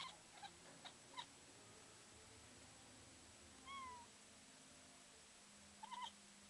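Domestic cat making short chirping calls at birds: a few faint ticks in the first second or so, one chirp a few seconds in, and two quick chirps together near the end.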